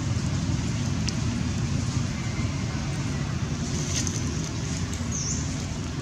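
Steady low outdoor rumble, with a faint hiss and a short high chirp about five seconds in.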